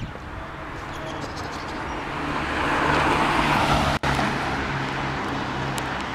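Road traffic: a vehicle passing, growing louder to about three seconds in and then fading, over a steady low hum.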